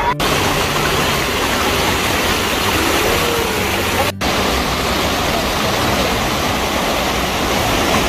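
Steady rush of flowing water in a rocky mountain stream. It breaks off for an instant twice, near the start and about four seconds in.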